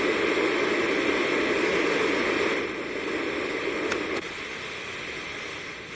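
iDealSleep white noise machine's small speaker playing a steady rushing noise track. About three seconds in it changes to a quieter, different noise track, as the machine is stepped on to its next sound.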